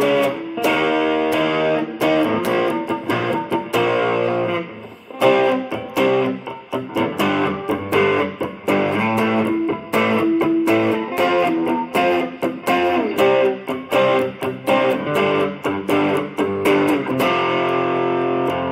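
Electric guitar played through a Valeton Dapper Amp Mini amp-modelling pedal into a Fender Champion 20 amp, with the pedal's reverb switched on. It plays a quick run of picked single notes and chords, with held chords at the start and again near the end.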